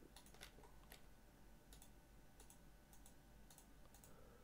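Faint computer mouse clicks at irregular spacing, about two a second, over near-silent room tone.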